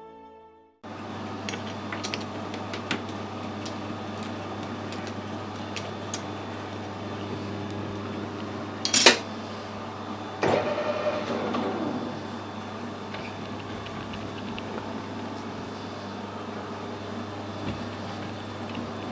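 A workshop machine running with a steady electric hum, with light metal clicks, one sharp metallic clank about nine seconds in and a short rattling scrape just after it.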